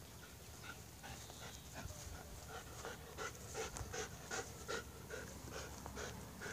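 Small dog panting in quick, even breaths, about two to three a second, growing louder from about a second in.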